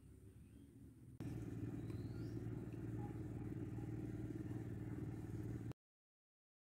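A steady low mechanical hum, like a small engine running, that starts abruptly about a second in and cuts off sharply near the end.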